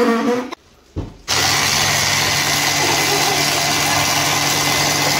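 Handheld electric mixer switched on at about a second and a half in and running steadily, its twin whisks beating eggs and sugar in a plastic jug. It is preceded by a brief voice and a single knock.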